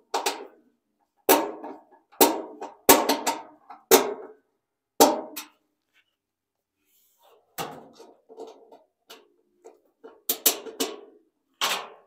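Socket wrench tightening the mounting bolts of a Maytag Performa washer's drive motor: a string of sharp metal clanks, each ringing briefly, irregularly spaced with a pause of about two seconds midway and a quick pair near the end.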